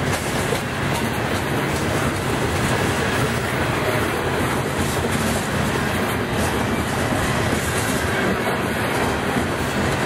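Freight train's covered hopper cars rolling past close by: a steady, loud rumble of steel wheels on the rails with clicking over the rail joints.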